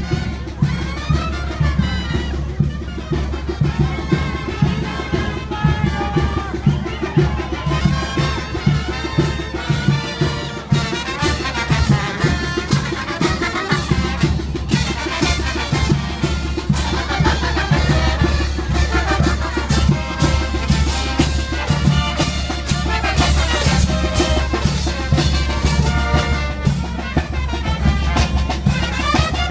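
Brass band playing: trumpets over a bass drum and cymbals, with a steady beat.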